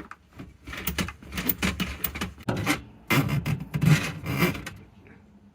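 Drain snake's metal cable scraping and rubbing inside a kitchen sink drain pipe as it is turned and worked back, in a run of irregular rasping strokes.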